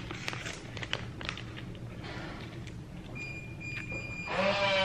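Plastic instant-noodle packet crinkling as it is handled, in short crackles. About three seconds in, a steady high beep-like tone sounds for about a second.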